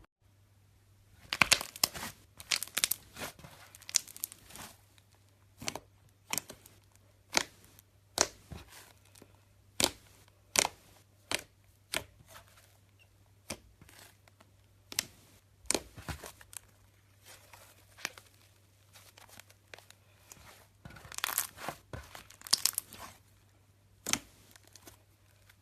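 Slime squeezed and poked by hand, making sharp crackling pops and clicks, some in quick clusters and some one at a time.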